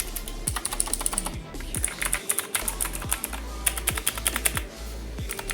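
Redragon Kumara mechanical keyboard with clicky blue switches being typed on in quick bursts, a dense run of sharp clicks with short pauses between bursts; very noisy.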